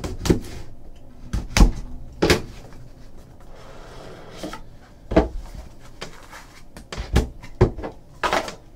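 A cardboard trading-card box being cut open with a box cutter and handled: a series of sharp taps and knocks as the box is opened and set against the table, with soft cardboard and plastic rustling between them.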